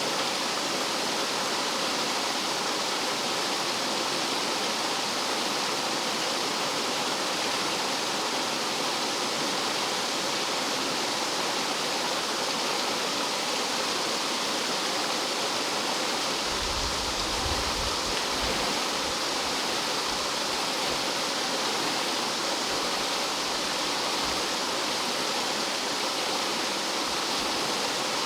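Rough mountain stream water rushing and falling over rocks like a small waterfall, a steady full rush, with a brief low rumble about two-thirds of the way through.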